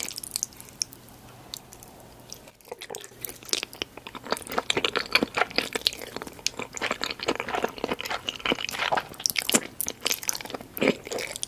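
Close-miked eating: a person crunching and chewing a big mouthful of food, with wet mouth sounds. It is quieter for the first couple of seconds, then the crunches come thick and fast.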